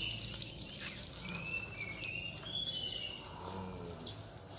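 Garden hose spraying a fine shower of water over a lovebird's wire cage, a steady hiss and patter. Lovebirds chirp a few times in short high calls in the middle.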